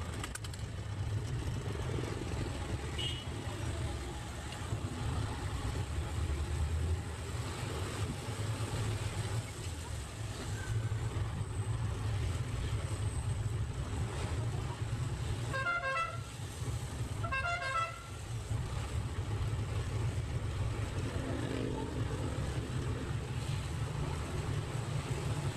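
Steady low drone of a jeepney's diesel engine and road noise, heard from inside the passenger cabin. About two-thirds of the way through, a vehicle horn honks twice in quick succession, each blast under a second.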